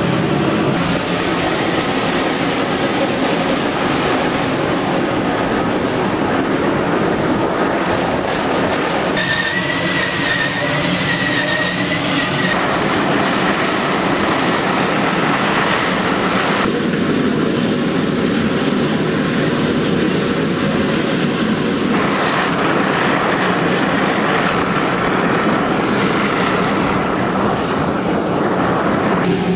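Slovenian Railways steam locomotive 25-026 running under way, heard from the cab: a loud, steady din of the working engine and wheels on the rails. A thin high squeal rises above it for about three seconds, some nine seconds in.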